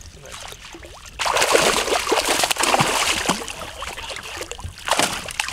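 Water splashing and sloshing as a smallmouth bass is scooped into a landing net and lifted from the water. It is loud and dense, starting about a second in and lasting a few seconds, with another brief splash near the end.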